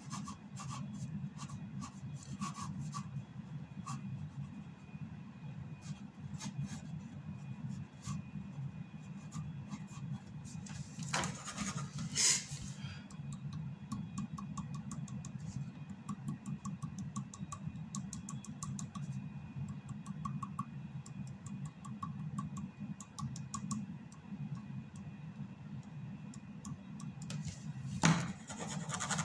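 Ink pen nib scratching and tapping on drawing paper in many short strokes, over a steady low hum. Two louder brushing rustles come about 11 seconds in and near the end.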